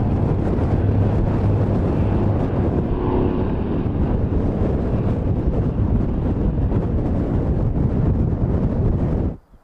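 Antonov An-2's single radial engine and propeller droning, heavily mixed with wind buffeting the microphone. The steady engine hum fades after about two seconds, leaving a rumbling wind-blown roar that cuts off abruptly near the end.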